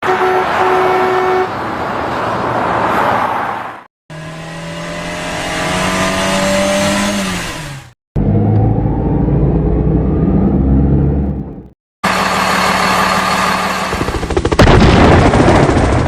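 Four separate motor-vehicle sound clips of about four seconds each, with short silences between them. The first opens with a steady horn note, the second has an engine revving up in pitch, and the last two are engines running, with a loud rush near the end.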